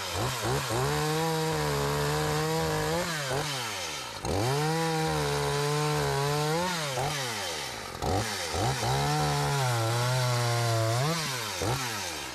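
Small Echo two-stroke chainsaw cutting through birch poles: the engine runs at full throttle through three long cuts, its pitch sagging under load during the last one. Between cuts it drops back with quick blips of the throttle, and it falls off toward idle at the very end.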